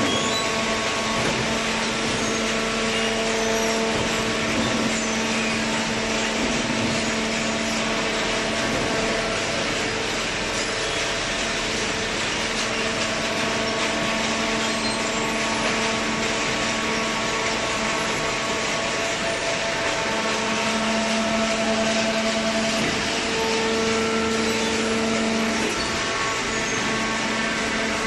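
Horizontal cardboard baler plant running: a steady machine drone with a humming tone from its motors, swelling briefly a few times, especially late on.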